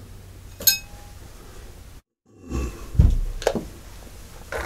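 A single small metallic clink with a short ring, then, after a brief cut in the sound, a few dull knocks as a rifle barrel and reloading gear are set down on the padded bench.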